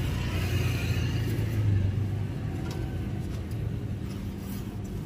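Road traffic passing on the street: a low vehicle engine rumble that swells about one and a half to two seconds in, then settles to a steady drone.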